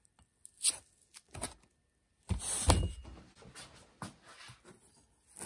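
Handling noises as a drill fitted with a hole saw is set down on a block of foam: a few light ticks and knocks, with a louder scuffling thud about two and a half seconds in.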